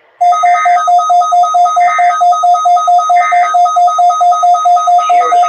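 Emergency Alert System test audio: an electronic alert tone beeping rapidly, about five pulses a second on two alternating pitches. Over it come three short digital data bursts about 1.4 seconds apart, the pattern of an EAS end-of-message signal.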